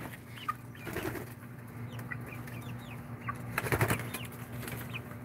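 Young chickens peeping with short, falling chirps, the anxious chirping of chicks let out of their coop, and a brief rustling burst about four seconds in.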